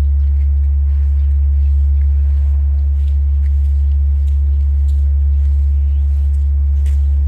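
Large Korean bronze temple bell (beomjong) humming on after a stroke: a loud, steady low hum with no new strike.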